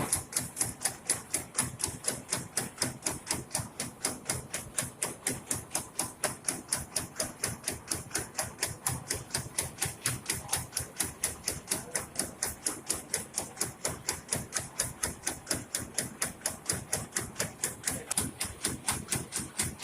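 Old rice-milling machine running with a fast, regular clacking, about four to five knocks a second, steady throughout.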